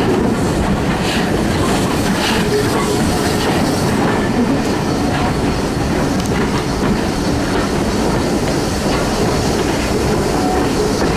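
Passenger train behind steam tank locomotive 42085 running at low speed: steady, loud rumble of carriage wheels on the rails with clatter over the rail joints.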